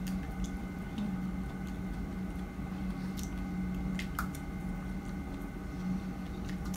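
Mouth sounds of someone biting and chewing a fresh strawberry, leafy top and all, with a few soft wet clicks and squelches. A steady low hum runs underneath.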